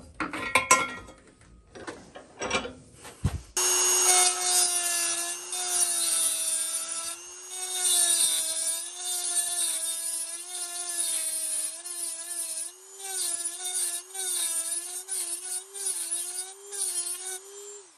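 A few short scraping sounds, then about three and a half seconds in a Dremel rotary tool with a carbide bit starts up. It grinds the steel exhaust flange opening with a steady high whine whose pitch wavers as the bit bites and eases, enlarging the opening to match the exhaust port.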